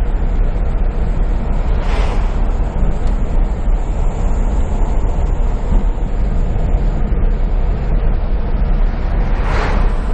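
Steady engine and tyre noise of a car driving on a winding road, heard from inside the cabin, with two brief swells of hiss about two seconds in and near the end.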